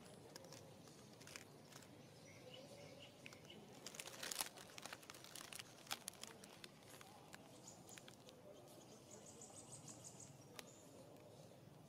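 Quiet forest ambience: scattered faint crackles and clicks, with a brief louder crackling about four seconds in and a faint, high, rapid trill near the end.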